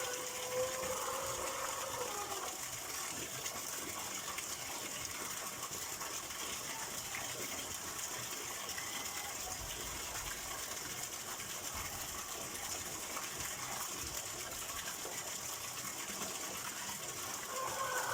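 Steady flow of running water, an even rushing with no pauses. A held steady tone sounds over it for the first two seconds or so.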